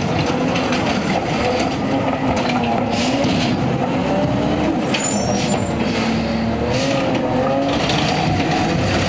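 McNeilus ZR automated side-loader garbage truck's natural-gas engine revved high to drive the hydraulic arm, its pitch rising and falling as the arm sets the cart down and stows before the truck moves off. Short air hisses, typical of the air brakes, come about three and five seconds in.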